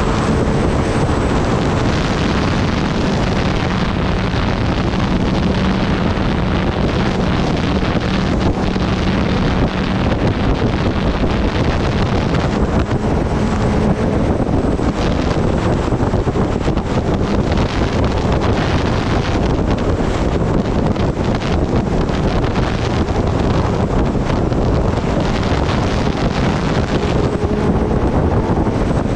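Wind rushing over the microphone of a motorcycle at highway speed, over the Kawasaki Ninja ZX-10R's inline-four engine running steadily.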